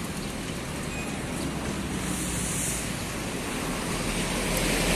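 Steady road traffic noise, with a brief hiss about two seconds in, growing louder near the end.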